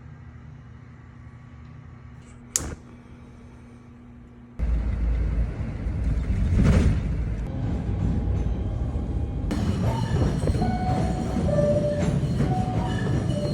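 New York City subway train running: a quiet hum with a brief sharp hiss, then a loud rumble that starts abruptly about four and a half seconds in, with short squealing tones near the end.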